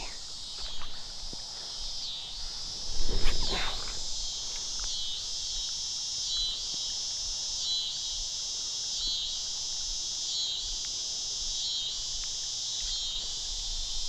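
Chorus of insects buzzing steadily high in pitch, pulsing evenly a little more than once a second. About three seconds in there is a brief louder noise.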